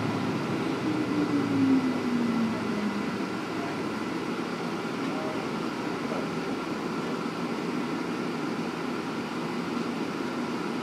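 Inside a KiHa 47 diesel railcar, above its re-fitted Komatsu diesel engine: the engine note falls over the first three seconds as it winds down, then a steady lower running hum continues.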